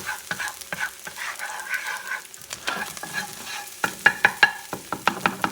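Egg frying in olive oil in a hot non-stick pan, sizzling, while a utensil stirs and scrapes against the pan. About four seconds in, the utensil's taps turn into a quick run of sharp clicks.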